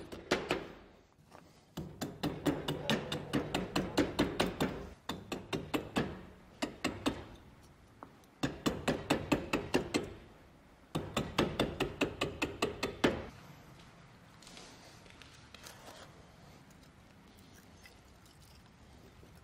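Hatchet working thin kindling sticks on a wooden block: four runs of quick sharp knocks and shaving strokes, about four a second, with short pauses between. In the last few seconds only faint handling of the sticks is heard.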